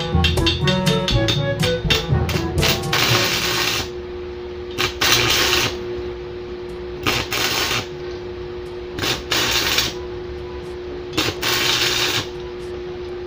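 Homemade arc welder built from scrapped microwave oven parts striking an arc with a stick electrode: five crackling, sputtering bursts about a second long, roughly two seconds apart, over a steady electrical hum. Background music plays during the first couple of seconds.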